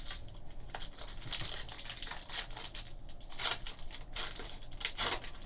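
The wrapper of a Bowman Sterling baseball card pack being torn open and crinkled by hand, in a run of short rustling bursts. The strongest are about three and a half and five seconds in.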